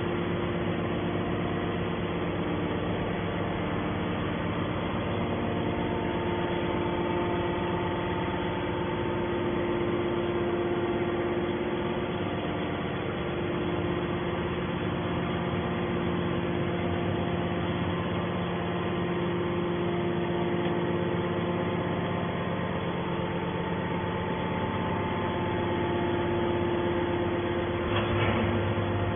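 Hydraulic power unit of a 200-ton scrap baler running: a steady machine hum with several held tones that shift slightly now and then. There is a short knock about a second before the end.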